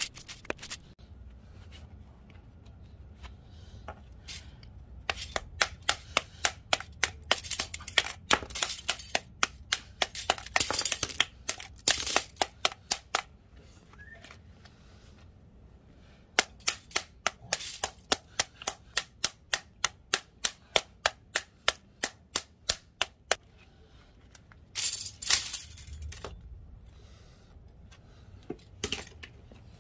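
Claw hammer striking the steel laminations of a small transformer core to knock them apart, in runs of quick sharp metal strikes about three a second, with the loose plates clinking.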